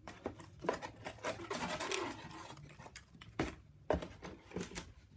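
Pieces of die-cut cardboard from a model storage-box kit being handled and shuffled: scraping rustles and light taps, with two sharper knocks about three and a half seconds in.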